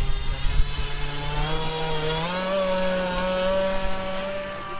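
Twin electric motors and propellers of a Hobbyking C-47 RC model plane running with a steady buzz. The pitch steps up about two seconds in as the throttle is opened on the ground roll.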